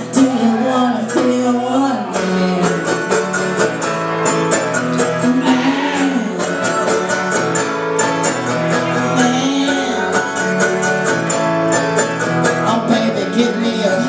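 Live acoustic guitar and mandolin strummed in a quick, even country-bluegrass rhythm while a woman sings, the strumming growing denser about two seconds in.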